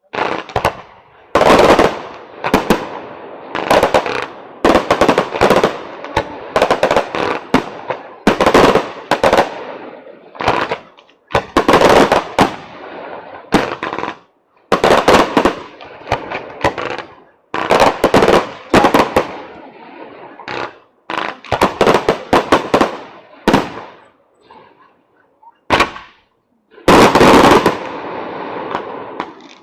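Fireworks display: loud, rapid volleys of exploding aerial shells, the bangs coming in dense clusters every second or two with brief gaps between them, and one especially heavy cluster near the end.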